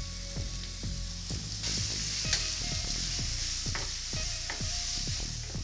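Sliced onions, green chillies and curry leaves sizzling in hot coconut oil in a non-stick kadai as they are stirred with a wooden spatula. The sizzle grows louder about a second and a half in.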